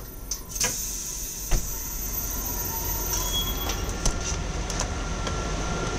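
Train noise inside a Benelux intercity carriage's vestibule: a steady hiss with a few sharp knocks and clunks, the loudest about a second and a half in, as the exit door is opened and the carriage steps are used to get off.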